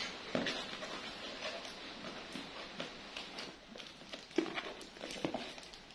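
Small scratches, taps and rustles of a cardboard box being handled while its packing tape is slit open with a small blade, with one sharper tap about four and a half seconds in.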